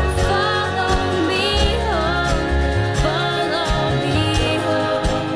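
Background music: a song with a singing voice and drums.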